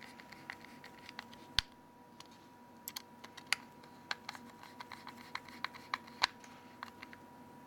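Small irregular clicks and ticks of a T6 Torx screwdriver turning self-tapping screws into a phone's metal mainboard cover, with the plastic case being handled, one sharper click about one and a half seconds in.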